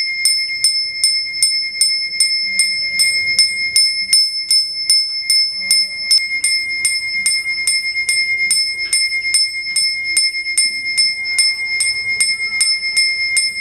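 Puja hand bell (ghanta) being rung steadily by hand, about three strokes a second, each stroke ringing on the same clear high tones.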